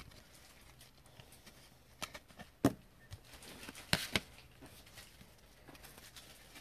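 Baseball trading cards being handled and sorted through by hand, with scattered light clicks and taps as cards are flicked and set down on a tabletop; the sharpest taps come about two and a half and four seconds in.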